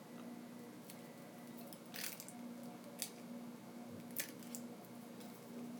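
Faint handling sounds of small repair work on a phone: a few light sharp clicks and taps, about a second apart, over a steady low electrical hum.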